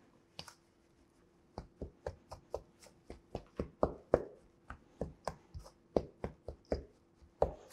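A stiff bowl scraper cutting butter into rice flour in a stainless steel mixing bowl, making a quick, irregular run of light knocks and scrapes against the bowl as it chops down through the butter. The knocks come at about three to five a second and start about one and a half seconds in.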